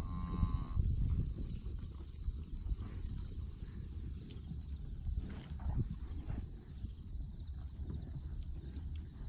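A steady, high, unbroken chorus of field insects such as crickets, over a low rumble.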